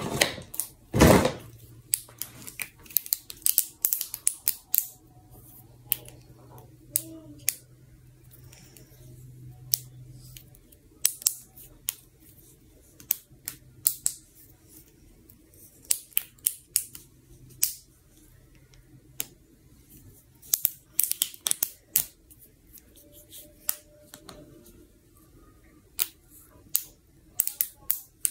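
Plastic pop tube (corrugated fidget tube) being stretched and bent, giving many sharp, irregular clicks and pops. A loud knock comes about a second in.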